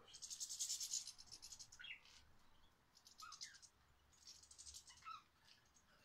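Faint chirping and twittering of small cage and garden birds, budgies and goldfinches: several bursts of rapid high chatter with a few short chirps between them.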